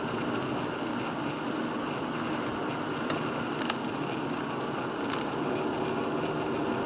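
Steady road noise inside a car driving on a rain-soaked road: tyres on wet pavement over the engine's hum. A few faint ticks come around the middle.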